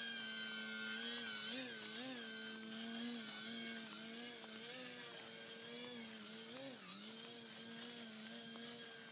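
Motor and propeller of an SU-29 radio-controlled aerobatic model airplane hovering nose-up: a steady buzzing drone whose pitch wobbles up and down with quick throttle corrections, most clearly around two seconds in and near seven seconds.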